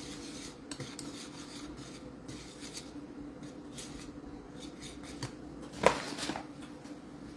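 Wire balloon whisk stirring a dry flour mix in a ceramic bowl: a soft, repeated rubbing and scraping. Just before the end a short clink as the whisk is laid down in the bowl.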